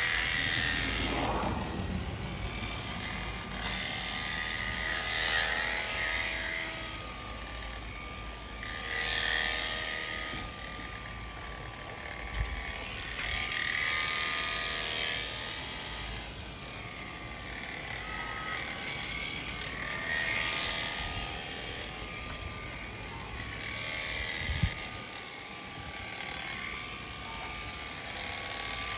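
Premier One electric sheep-shearing clippers running with a steady whine as they cut through a ram's fleece, a rasp swelling and fading every few seconds.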